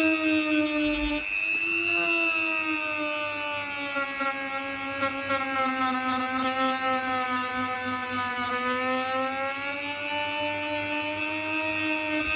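A small electric power tool running continuously with a steady whine. Its pitch sinks slightly through the middle and rises again, as when the motor is loaded and then eased.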